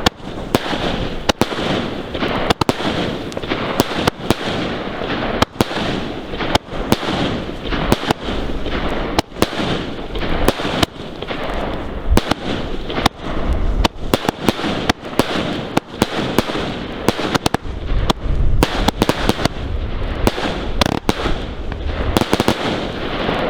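Fireworks going off densely: a continuous crackle with many sharp bangs, and some heavier, deeper booms in the middle and later part.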